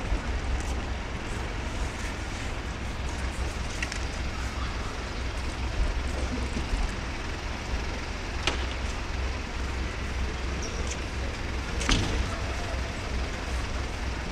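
Parked fire engines idling: a steady low engine rumble under general street noise. Two sharp knocks come through, about eight and a half and twelve seconds in.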